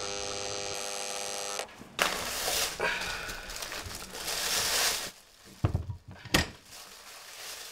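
Apartment intercom door-release buzzer buzzing steadily for about a second and a half as its button is held, then a few seconds of shuffling noise and two sharp knocks a little over halfway through.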